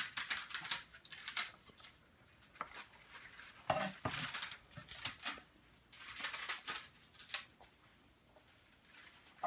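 Knife chopping and scraping on a wooden cutting board, dicing pepper in several short bouts of quick cuts, with one louder knock about four seconds in.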